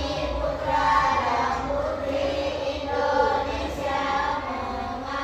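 A group of children singing together in unison, with a steady low hum underneath.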